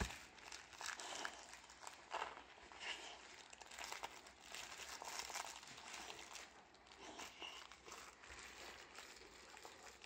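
Boxer dog chewing and mouthing a plush toy: faint, irregular crinkling and rustling of the fabric, with small crunching clicks.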